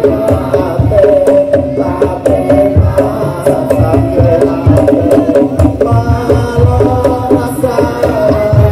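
Madurese daul percussion ensemble playing loud, fast drumming in a steady beat, with a melody carried over the drums.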